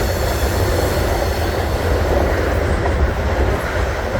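Train cars passing close by: a steady, loud rumble of wheels on rails with a faint high-pitched wheel squeal above it.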